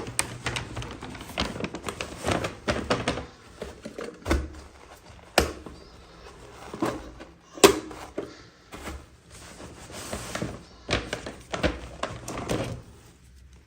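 Hands unboxing miniature toys: irregular plastic clicks, taps and rustling of packaging, with two sharper knocks about five and a half and seven and a half seconds in, dying away near the end.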